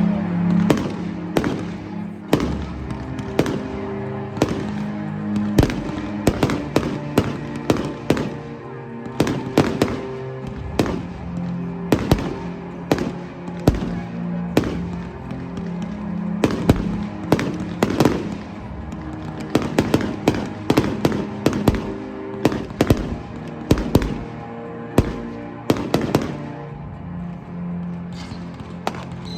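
Fireworks going off in quick succession, several sharp bangs and crackles a second, over music playing in held low chords.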